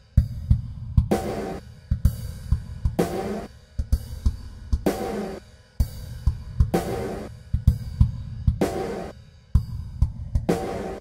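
Instrumental background music led by a drum kit: a steady beat of drum hits with a cymbal-heavy accent about every two seconds.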